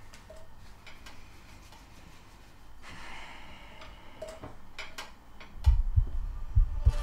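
Faint scattered ticks and clicks, then near the end heavy low thumps in pairs about a second apart: soundtrack sound design leading into the score.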